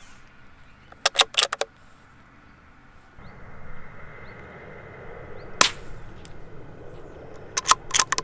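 .22 LR rifle firing: sharp cracks in a quick cluster about a second in, a single crack past the middle, and another quick cluster near the end.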